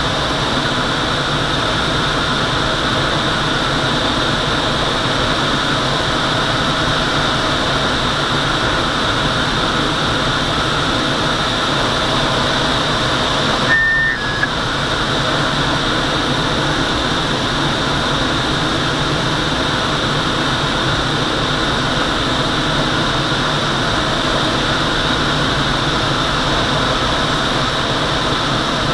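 Steady rush of air in the cockpit of a Twin Astir glider on aerotow, with the tow plane's engine drone mixed in. A short electronic beep comes about halfway through.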